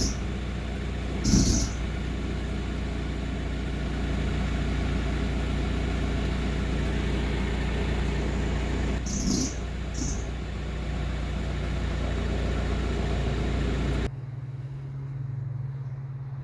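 Audi A4 B6 engine running, with short high squeals from the engine bay's accessory belt drive when the steering wheel is turned, three times. The whistle is put down to a failing alternator pulley. About fourteen seconds in, the running noise drops abruptly to a low hum.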